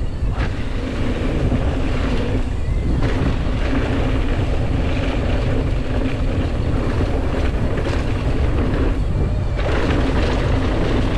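Wind buffeting a GoPro microphone on a downhill mountain bike ride, over the rumble of knobby tyres rolling on a dirt trail, with a few short knocks and rattles from the bike.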